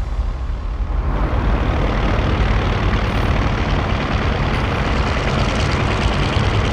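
Propeller aircraft piston engine running steadily with a deep rumble. Its noise swells about a second in and then holds level.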